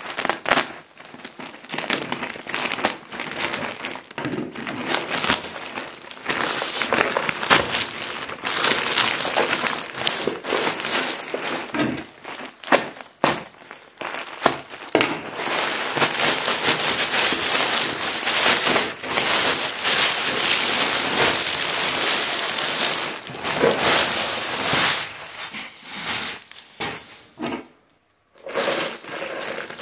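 A plastic courier mailer bag is cut open with a utility knife and pulled apart, crinkling and rustling loudly and irregularly. Near the end the plastic-wrapped items inside are handled and crinkle too, with a brief pause shortly before the end.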